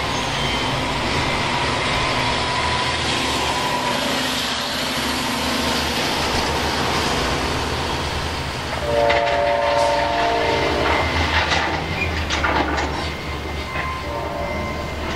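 Diesel locomotive air horn sounding a chord of several tones about nine seconds in, held for about two seconds, with shorter blasts near the end, over a steady low diesel rumble.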